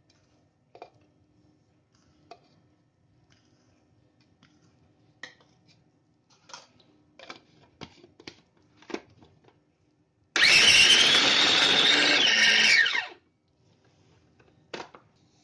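Small electric food chopper: a few plastic clicks as the bowl and lid are handled and the lid is fitted, then the motor runs loud for about two and a half seconds and winds down, blending boiled chicken, onion, green chilli and spring onion into a paste.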